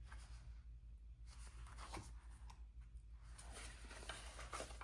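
Faint rustling of paper sticker sheets being handled, with a few small ticks, over a low steady hum.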